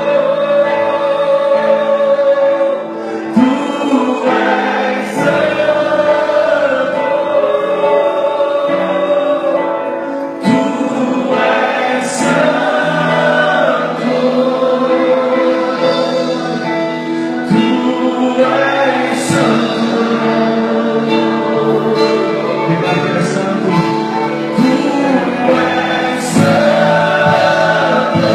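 Live gospel worship music: sustained keyboard-like chords under voices singing together, with a brief bright swell in the highs every seven seconds or so.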